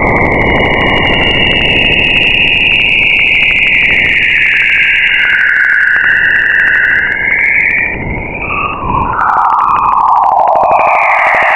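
Eerie synthesized space sound, presented as the sound of an exoplanet: high wavering tones that slowly glide down and back up over a rushing, noisy rumble that fades in the second half.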